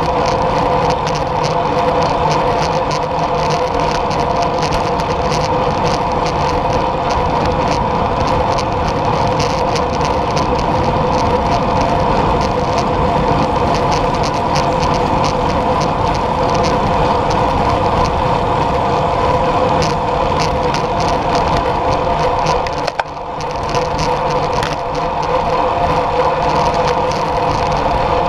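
Steady rush of wind over a camera mounted on a moving road bicycle, mixed with the hum and fine crackle of the tyres rolling on coarse asphalt. It drops away for a moment about 23 seconds in, then returns.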